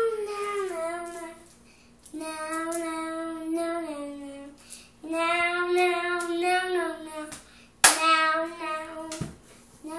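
A young girl singing in four phrases of long, held notes, each two to three seconds, with short breaks between them. A single sharp smack, like a clap, cuts in about eight seconds in.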